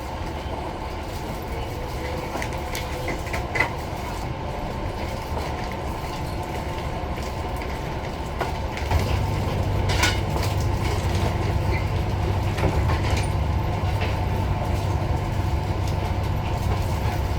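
Train running with a steady low rumble that grows louder about nine seconds in, with a few scattered clicks.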